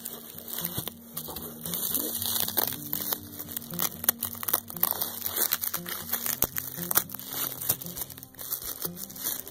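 Bubble wrap crinkling and crackling as hands handle bubble-wrapped plastic bottles in a cardboard box, with many small sharp crackles, under quiet background music.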